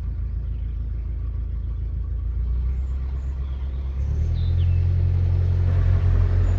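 Narrowboat's diesel engine running steadily. About four seconds in it is throttled up, and it gets louder and slightly higher.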